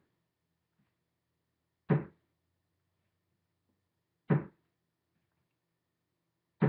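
Three dull thumps or knocks, evenly spaced a little over two seconds apart, each sharp at the start and dying away quickly, with near silence between them.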